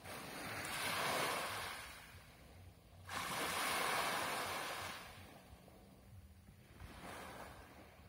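Small sea waves breaking and washing up a pebble beach: two loud surges about three seconds apart, then a weaker one near the end.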